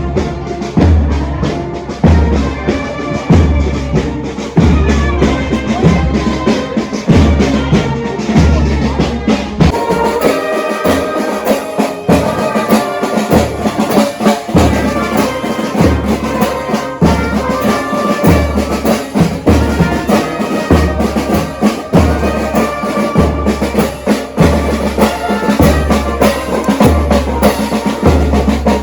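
A marching band playing: brass carries a melody over a steady bass-drum beat, roughly one beat a second, with snare drum. About ten seconds in, the bass drum drops out for a couple of seconds, then comes back.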